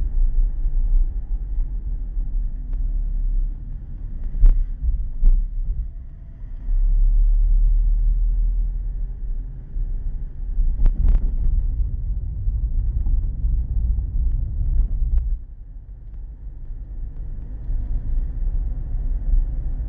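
Low rumble of a car driving, heard from inside the cabin through a dashboard camera's built-in microphone, with a few sharp knocks about four and a half, five and eleven seconds in. The rumble gets quieter about fifteen seconds in.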